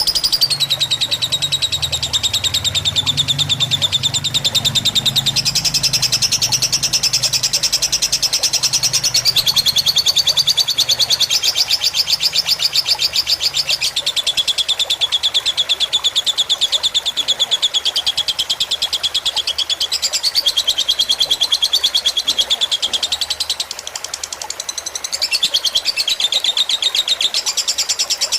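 Lovebird singing a long, unbroken, very fast chattering trill, the extended 'ngekek' song prized in fighter lovebirds. Its pitch steps up and down every few seconds, and it softens briefly about three-quarters of the way through.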